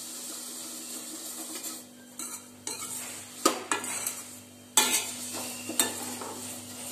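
Steel spoon stirring and scraping thin vermicelli frying in ghee in a stainless steel kadai, with a steady sizzle and a few sharp clinks of the spoon against the pan, about three and a half, five and six seconds in. The vermicelli is being roasted until brown.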